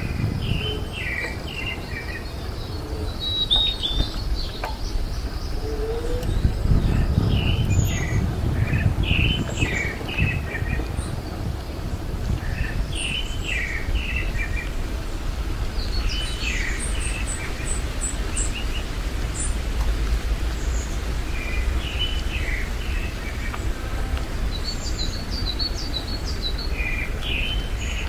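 Small songbirds chirping and singing in short, quick phrases, again and again, over a steady low rumble.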